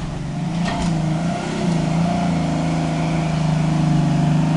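Off-road pickup truck's engine revving up and held at high revs under load as the truck climbs out of a muddy ditch. A couple of sharp clunks come about a second in.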